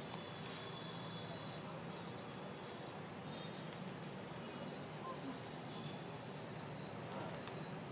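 Drawing on paper: short, irregular scratchy strokes of a pen on paper, coming in quick runs.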